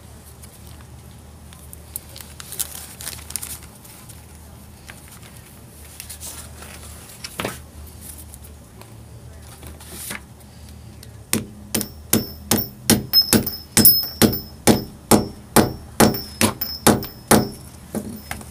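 Claw hammer setting a brass two-piece rivet through a leather strap: after some quiet handling, a quick, even run of about twenty sharp metallic strikes, about three a second, each with a short light ring, starting about two-thirds of the way in.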